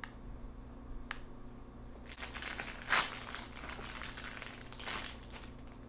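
Cheese-slice wrapping crinkling and rustling as slices are peeled off it, in a run of crackly rustles from about two seconds in, loudest near the middle. Two short clicks come before it, at the start and about a second in.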